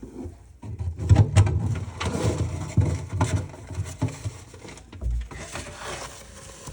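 Handling noise: irregular wooden knocks and clicks with rustling paper as folded instruction sheets are taken out of the clock case and opened, with a dull thump about five seconds in and softer rustling near the end.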